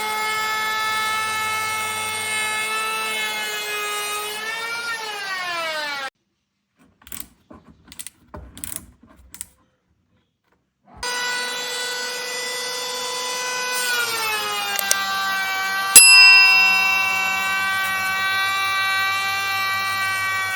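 Electric hand planer's motor and cutter head running with a steady high whine. Its pitch slides down, then it cuts off into a few seconds of near silence with a few faint knocks. It runs again, its pitch drops once more, and a sharp click sounds about three-quarters of the way through.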